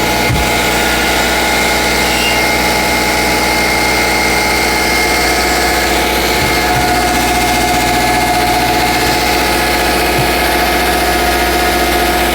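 Subaru Legacy B4 engine idling, with a steady high whistle from its alternator bearings running over the engine noise.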